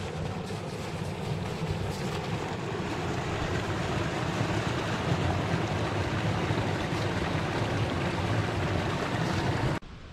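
Mountain creek rushing steadily over rocks close by, a continuous noise of running water that stops abruptly near the end.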